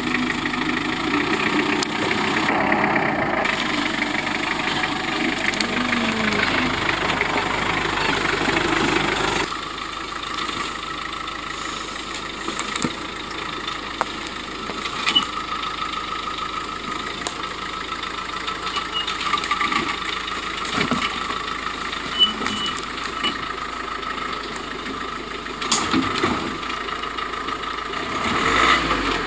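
A Mitsubishi Pajero's engine running at low revs as it crawls down a rocky gully. About a third of the way in this gives way to a Suzuki Jimny's engine idling as it creeps over rocks, quieter and steadier, with scattered sharp knocks, and growing louder near the end.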